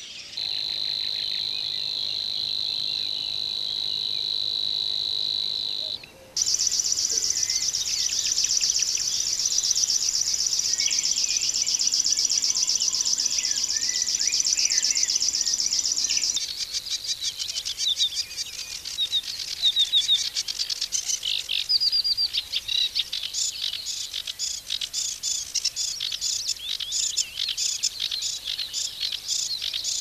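Reeling birdsong in three parts. For the first six seconds a bird gives a steady, fast trill. Then a river warbler sings its very fast, insect-like reeling song at a higher pitch for about ten seconds, and from about halfway through a sedge warbler sings a varied, chattering song of rapid repeated notes.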